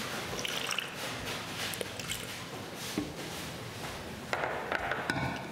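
Light kitchen handling sounds: a few small clicks and knocks of containers and utensils on a countertop, with a short cluster of them about four to five seconds in.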